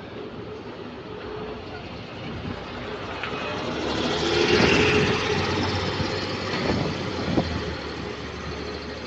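Volvo B5LH hybrid bus running under way, its noise swelling to a peak about halfway through and easing off again, with a couple of short knocks after the peak. The bus makes an unusual noise that follows engine revs, one the uploader has never heard from a B5LH.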